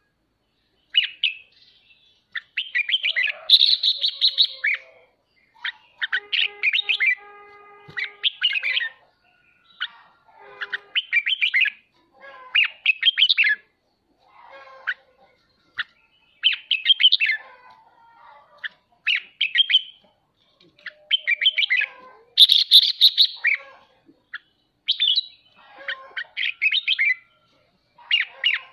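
Red-whiskered bulbul singing its excited, rapid chattering song ('ché'), in short bursts every second or two, the kind of song used to stir other pet bulbuls to sing.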